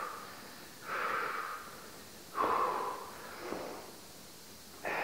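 A man breathing hard from exertion: loud, noisy breaths roughly every second and a half, without voice.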